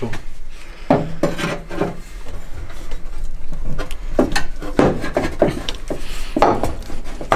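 Welded metal intake pipes being worked into a car's engine bay, knocking and scraping against the bodywork and each other in an irregular string of bumps and rubs.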